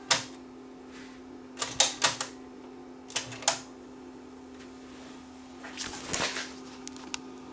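NAD 6155 cassette deck's piano-key buttons and tape transport clicking: a sharp click as Stop is pressed after rewinding, then further clunks of the mechanism as Play is pressed and engages, over a steady low hum.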